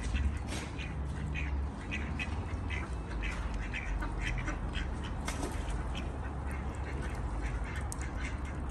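Mallard ducks quacking repeatedly in short calls, over a steady low rumble.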